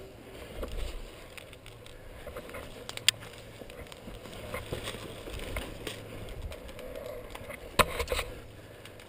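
Footsteps on dirt and broken brick with clothing and gear rustling, and a few sharp knocks: one about three seconds in and two close together near the end.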